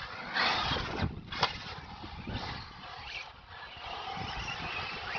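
Traxxas Maxx RC monster truck's tyres scuffing over dirt and grass, with a sharp knock about a second and a half in and wind buffeting the microphone.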